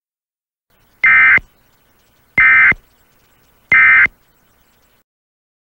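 Emergency Alert System (SAME) end-of-message data bursts: three short identical digital bursts about a second and a half apart, the code that closes an EAS alert.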